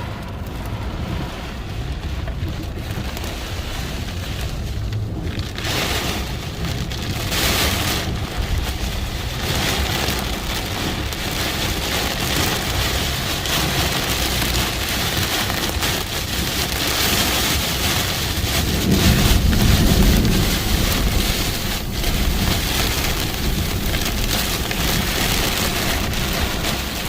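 Heavy rain pouring down hard in a dense, steady rush. A low rumble swells about two-thirds of the way through.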